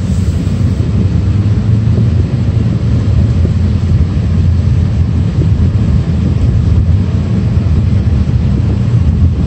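Steady low rumble of road and engine noise inside the cabin of a 2017 Ford Focus hatchback under way.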